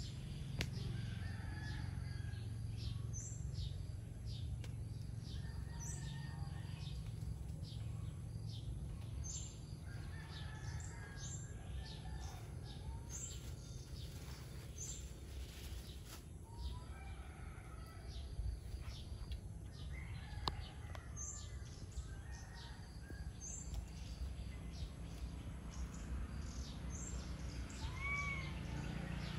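Birds chirping, short high calls repeating every few seconds, over a steady low rumble of background noise.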